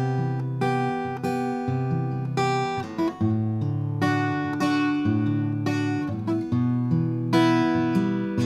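Background music: acoustic guitar picking and strumming a steady progression of chords.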